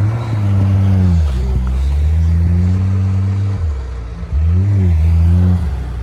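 Off-road vehicle's engine revving under load in about three long surges, each rising, holding and then dropping back, as the stuck 4x4 tries to drive out of wet snow and sand.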